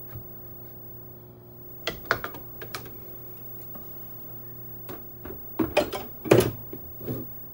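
Scattered clicks and knocks of metal parts handled by hand as a CNC router's spindle is pulled out of its mount and carried off. A few light taps about two seconds in, then a busier run of clatter near the end, over a faint steady hum.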